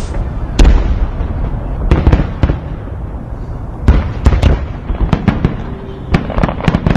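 Large fireworks display going off: a rapid series of sharp bangs and crackles over a continuous low rumble, with the loudest reports about half a second in and around four seconds in.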